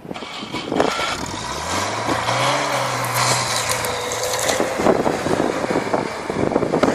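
A vehicle engine rising in pitch as it speeds up, then holding steady for a couple of seconds, over a steady rushing noise.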